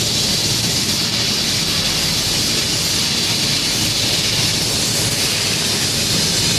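Flux-cored arc welding on stainless steel: the arc runs with a steady, even hiss.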